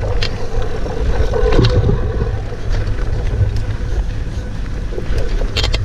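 Mountain bike riding along a dirt trail: wind buffeting the chest-mounted camera's microphone and tyre rumble, with a steady hum and a few sharp clicks and rattles from the bike.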